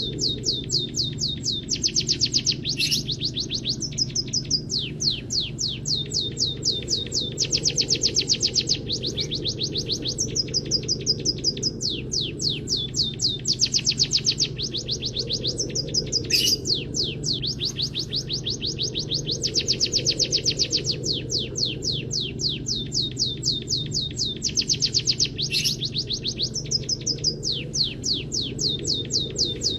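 Caged songbird singing canary-style song: rapid runs of repeated high notes in phrases that change pitch every second or two, with a few sharp higher notes, over a low steady hum.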